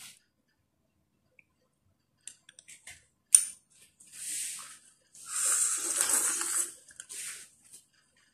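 A few light clicks and one sharp tap of chopsticks against a small glass bowl, then egg noodles slurped off the chopsticks in three pulls, the middle one longest and loudest.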